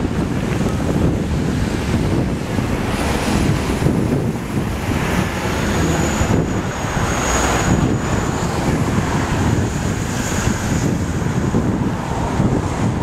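Gusty wind buffeting the microphone over passing city traffic, a bus among it. A faint high whine comes in for a few seconds near the middle.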